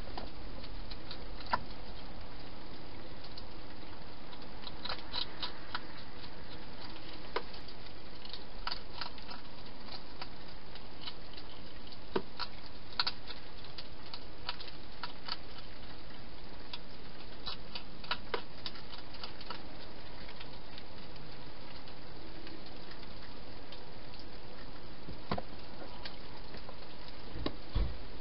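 Hedgehog eating from a bowl: scattered sharp clicks of chewing, sometimes in quick runs, over a steady hiss, with a dull knock near the end.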